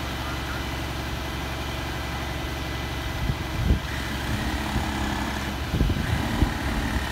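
Engine of a truck-mounted tree spade idling steadily, with a few dull knocks about three and a half and six seconds in.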